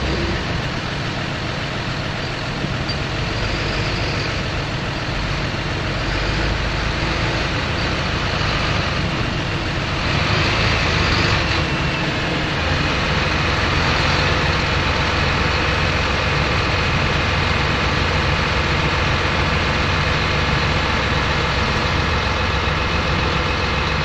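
John Deere tractor diesel engines running steadily.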